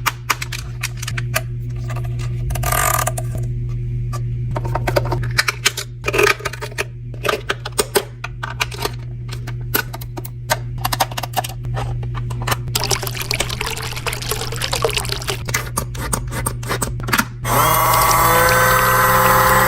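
Mini washing machine: a steady motor hum under many light clicks and taps, then near the end water starts running in with a pump-like sound.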